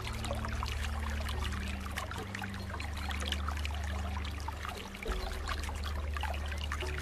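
Aquarium water bubbling and trickling, a dense fizzy crackle of tiny bubbles, over low held tones that shift in pitch twice.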